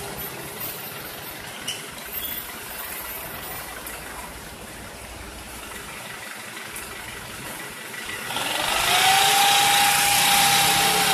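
Idling road-works machinery rumbles steadily. About eight seconds in, the dump truck's engine revs up with a rising, then steady whine as its tipper bed is raised further to pour asphalt into the paver.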